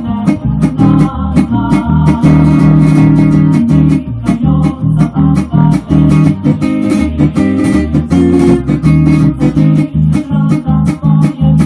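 Hollow-body archtop electric guitar strummed in a quick, steady rhythm, chords ringing over a bass line underneath.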